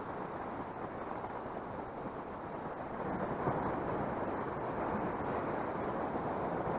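Wind rushing across the microphone, a steady rumbling hiss that grows a little louder about three seconds in.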